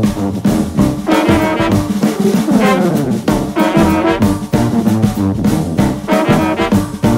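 Background music: an upbeat jazzy tune with brass instruments over a steady beat.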